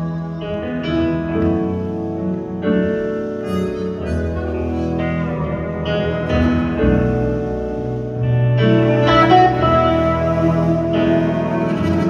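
Live blues band playing an instrumental passage: a harmonica plays held notes over electric guitar and keyboard.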